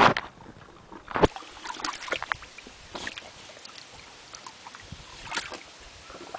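A dog stepping into a shallow plastic kiddy pool and wading, her paws splashing and the water sloshing in irregular bursts. The loudest splashes come right at the start and about a second in, with smaller ones later.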